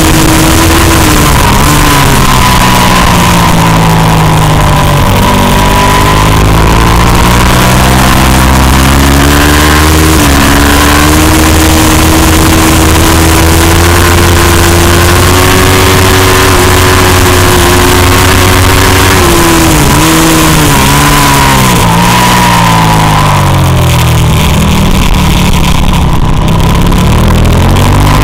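Racing motorcycle engine at high revs, heard onboard over a steady rush of wind. The revs drop in steps twice, early on and around twenty seconds in, as it brakes and downshifts into bends, then climb again under acceleration.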